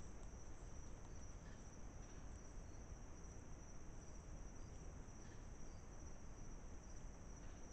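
Night insect chorus: a steady, continuous high-pitched trill that never breaks, with a low hiss underneath.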